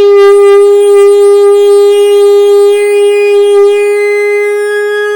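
ChS200 electric locomotive's horn sounding one long, loud blast on a single steady note.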